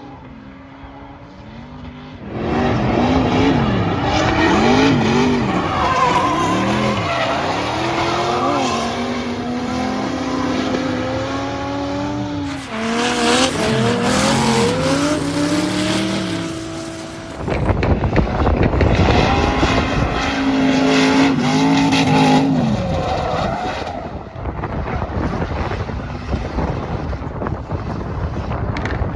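V8-turbo Nissan Silvia S14 drifting: the engine revs up and down again and again with tires squealing. It is fainter at first and gets loud about two seconds in, with a stretch of harsh tire noise around the middle.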